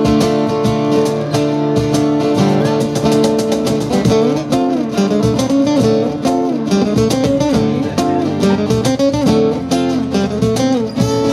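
Live instrumental passage on two strummed acoustic guitars over a cajón beat, with a guitar melody line climbing and falling from about four seconds in.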